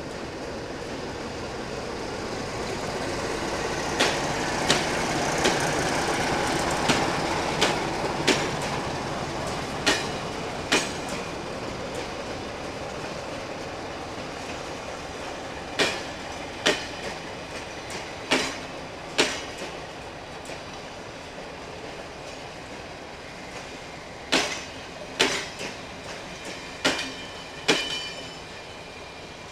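MÁV-START passenger coaches rolling slowly past, their wheels knocking over rail joints in pairs of sharp clacks over a steady rolling rumble that swells a few seconds in and then eases.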